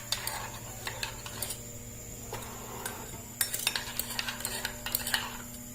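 A spoon stirring lemon juice and ground ginger in a pot heating on the stove, with scattered clinks against the pot that come thickest in a run from about three and a half to five seconds in.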